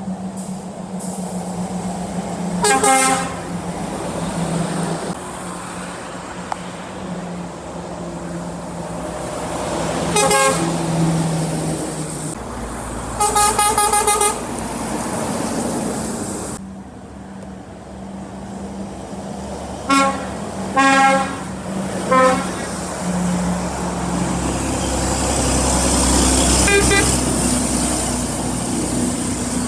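Passing trucks sounding their horns: about seven separate honks, mostly short, the longest about a second, over the steady noise of road traffic that swells near the end as heavy vehicles go by.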